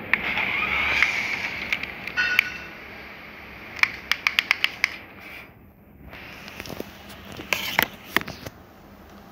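Small electric motor and plastic gears of a toy radio-controlled car whirring, then a quick run of sharp clicks about four seconds in and a few more near the end.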